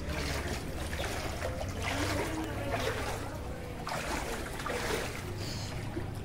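Muddy floodwater sloshing and splashing in repeated surges about once a second as someone wades through it, over a steady low rumble.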